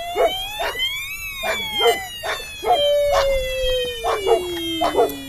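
Blade 350 QX quadcopter's brushless motors whining, their pitch gliding up and then slowly falling as the throttle changes. A dog barks repeatedly over it.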